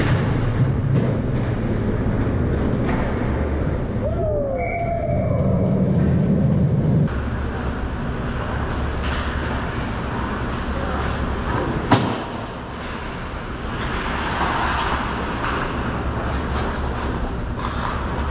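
Ice hockey rink sounds: a steady low rumble with skate blades scraping across the ice, and a single sharp knock about twelve seconds in.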